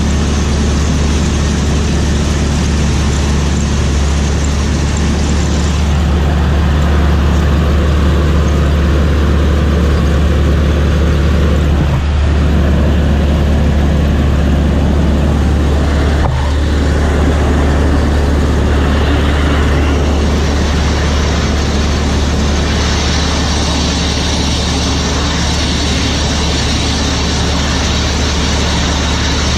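John Deere 3300 combine running while harvesting wheat: a loud, constant low machine drone, with two brief dips about 12 and 16 seconds in.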